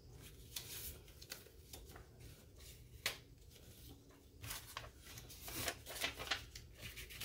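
Paper banknotes rustling and flicking as a handful of bills is fanned and sorted by hand: a faint, uneven run of crisp paper rustles with a sharper snap about three seconds in.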